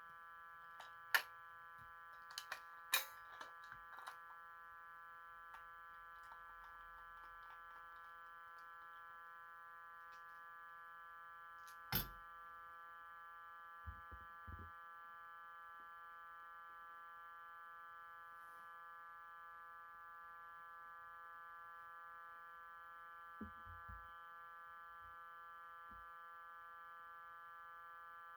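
A glitching 2001 re-release Furby holding a steady, faint electronic hum of several tones from its speaker, a stuck audio fault set off by disturbing its battery contacts. Light clicks come in the first few seconds, with one louder click near the middle and a few soft knocks later.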